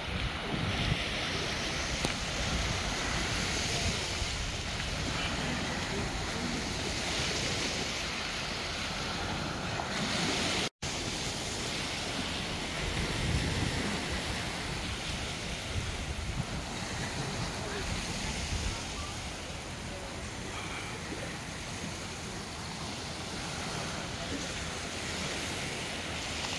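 Small sea waves washing onto a sandy beach, with wind buffeting the microphone; the sound drops out for a split second about eleven seconds in.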